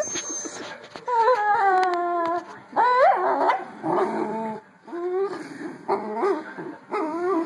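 Dachshunds whining and yipping as they play tug of war over a plush toy. There is a long whine that slides down in pitch, then a sharp rising yelp, then several shorter whines.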